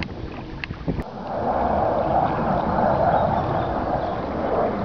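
Water swishing and gurgling along the side of an inflatable boat as it moves slowly, a steady hiss that starts after a click about a second in.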